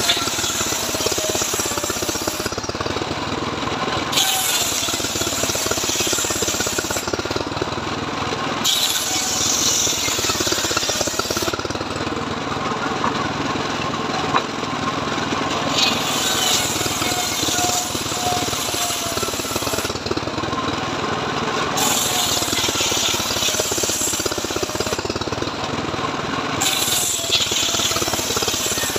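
Homemade engine-driven circular sawmill ripping mahogany slabs. The engine runs steadily, and the blade's cutting noise rises and falls in passes of a few seconds each, about six times.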